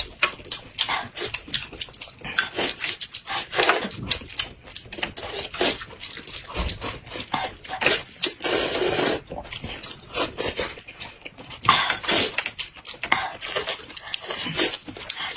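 Close-miked eating sounds: hot and sour sweet-potato noodles slurped in from broth, with lip smacks and chewing in quick succession. A long slurp comes about eight seconds in.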